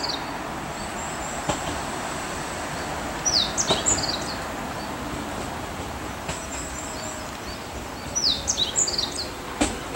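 A 115-series electric train approaching slowly gives a steady running noise. Birds chirp over it in two short bursts of quick falling chirps, one a few seconds in and one near the end.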